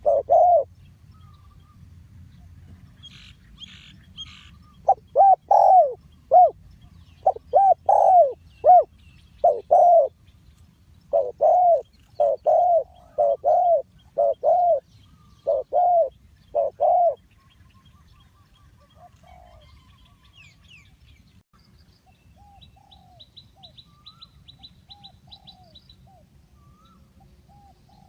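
Spotted dove cooing: loud phrases of short, arched coos repeated in a run from about five to seventeen seconds in. Small birds chirp faintly and high, with a quick faint trill near the end.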